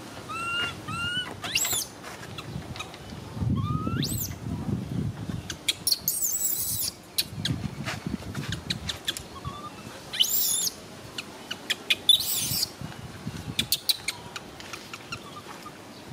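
Infant long-tailed macaque crying: short, high, rising whistle-like cries at first, then several shrill screams, the loudest about twelve seconds in, over scattered clicks.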